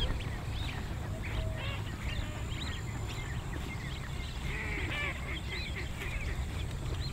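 Many birds chirping and calling, short rising-and-falling notes scattered throughout, over a steady low rumble.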